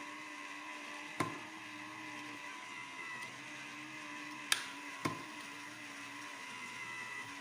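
A small electric gear motor whirring with a steady hum, with three sharp clicks or knocks, the second and third close together.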